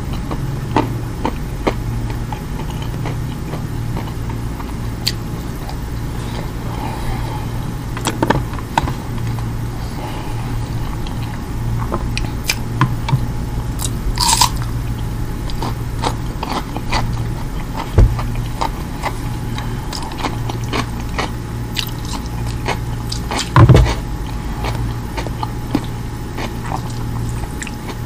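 Close-miked chewing and wet mouth sounds of someone eating tender roast lamb and rice by hand, with scattered small smacks and clicks over a steady low hum. A louder thump comes near the end.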